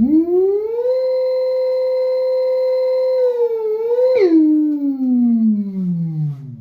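Electric motorcycle's motor controller heard through a loudspeaker wired straight to it: a howling whine whose pitch follows the motor. It rises over the first second and holds steady, wavers, drops sharply about four seconds in, then glides steadily down toward the end.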